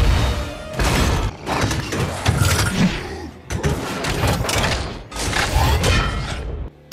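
Film fight sound effects of the Hulkbuster armour battling the Hulk: a run of heavy crashes, booms and thuds with smashing debris, one every second or so. They cut off suddenly near the end.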